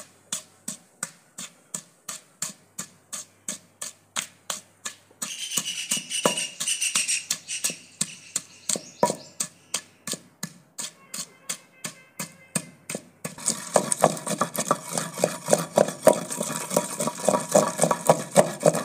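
Wooden pestle pounding green chillies in a clay pot: a steady run of dull knocks, about three a second. A hiss comes in about five seconds in and grows louder after about thirteen seconds.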